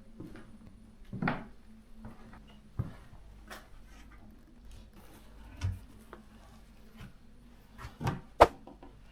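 Scattered wooden knocks and bumps, a handful of separate hits a second or more apart, the sharpest near the end: wood being handled during floorboard removal.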